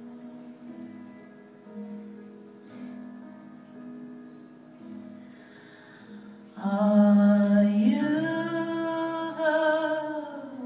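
A woman singing live with piano accompaniment: soft, held notes at first, then about six and a half seconds in a loud sustained sung note that rises in pitch and is held for several seconds.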